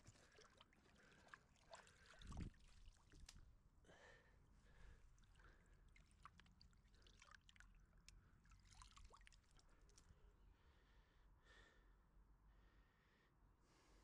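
Faint splashing and dabbling of a hand working in shallow pond water, with small scattered clicks and one louder dull bump about two seconds in.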